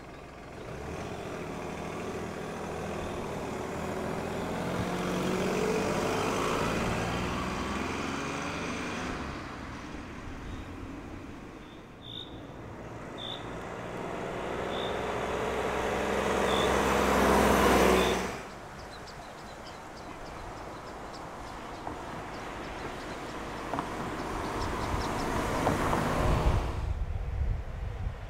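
Škoda Fabia Combi driving along and approaching, its engine note and tyre noise growing louder as it nears. This happens in three takes: the sound cuts off abruptly after the peak at about eighteen seconds in, and again just before the end.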